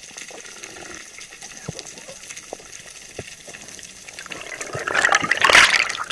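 Underwater bubbling and rushing of air bubbles streaming around the camera. It builds up about four seconds in and is loudest near the end, after a faint steady whine with a few scattered clicks.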